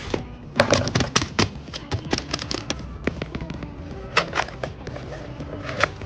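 Handling noise from unpacking shopping-haul items: irregular sharp clicks and crackles, thickest in the first half, with a few louder ones about four seconds in and near the end, over faint background music.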